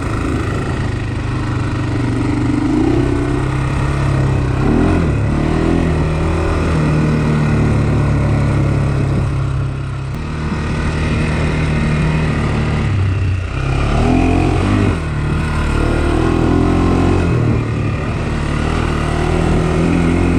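Honda 400X quad's single-cylinder four-stroke engine running under way on a trail, the engine note rising and falling with the throttle through turns, with a few brief dips as it eases off.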